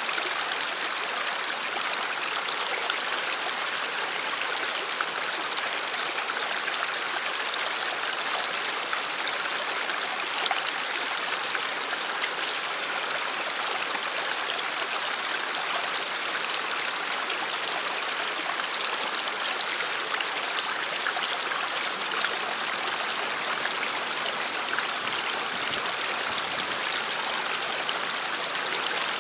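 Stream water rushing steadily over rocks, an even hiss with no breaks.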